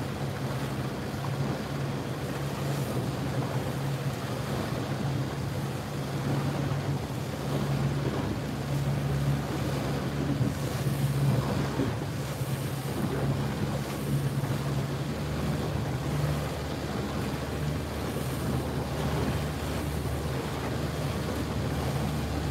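A boat's engine running with a steady low hum, under wind buffeting the microphone and water noise.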